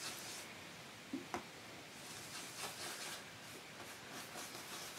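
Brush mixing oil paint on a palette: faint irregular scrubbing and rubbing strokes, with one small click a little over a second in.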